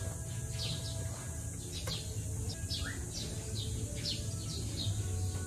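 Small birds chirping: short, high, falling chirps repeated a few times a second, over a steady low hum.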